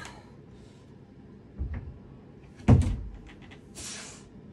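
A climber's hands and feet knocking against the holds of a wooden climbing board, with a soft thud about one and a half seconds in and a heavy thump a little under three seconds in as the feet cut loose and swing. A short hissing breath out follows about a second later.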